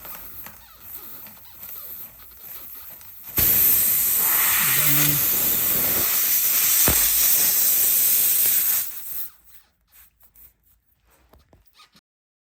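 Pressurised air hissing loudly out of an open tire puncture for about five seconds once the rasp tool is pulled out. It cuts off abruptly as the plug needle is pushed in and seals the hole.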